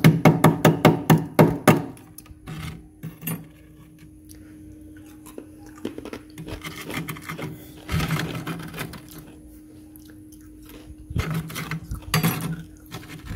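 Plastic spoon scraping thick frost inside a freezer compartment: a fast run of sharp scrapes, about five a second, then slower scattered scrapes and crunches of loosened frost later on.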